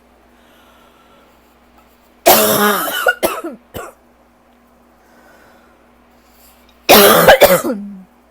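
A person's dry, hacking cough in two loud fits about four seconds apart, each a run of several coughs. The uploader puts it down to asthma and allergies made worse by lingering bronchitis.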